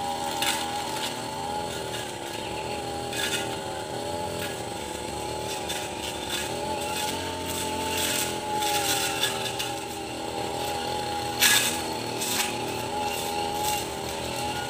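Brush cutter with a metal blade running at high revs, its small engine whining steadily with slight rises and falls as the blade cuts through grass and undergrowth. Scattered sharp clicks run through it, the loudest about eleven and a half seconds in.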